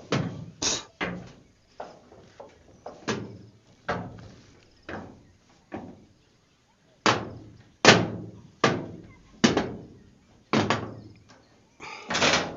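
A stiff gate being banged and forced shut: a string of irregular knocks and thuds, with a short pause around six seconds in.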